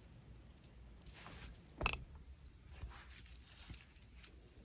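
Faint handling sounds of a hammered copper washer and bead bracelet, with light ticks of the metal links and one sharper click about two seconds in.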